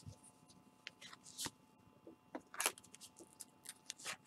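A foil baseball card pack torn open and its cards pulled out and handled in nitrile-gloved hands: irregular crinkles and rustles with a few sharp crackles.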